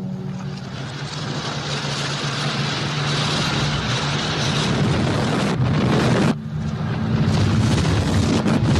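Sci-fi molecule chamber sound effect: a rushing, hissing noise over a steady low hum, slowly building. About six seconds in it cuts out abruptly for a moment, then comes back louder.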